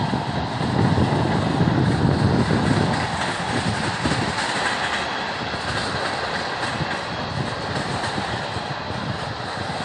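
Freight train tank cars rolling past, steel wheels rumbling and clicking over the rail joints with a steady roar, loudest for a couple of seconds about a second in.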